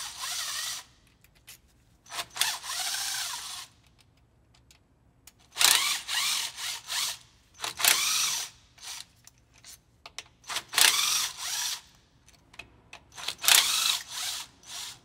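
Cordless impact driver spinning a socket on an extension, backing out the bolts of a transmission governor pressure solenoid body. It runs in about six short spurts with brief pauses between them, one for each fastener.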